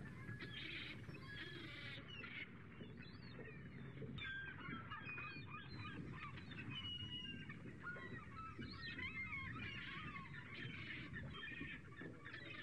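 Many birds calling at once: a dense chorus of short, overlapping wavering calls over a low background rumble.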